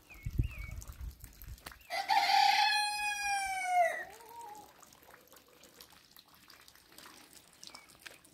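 A rooster crowing once: one long call of about two seconds, a little under two seconds in, dropping slightly in pitch at its end.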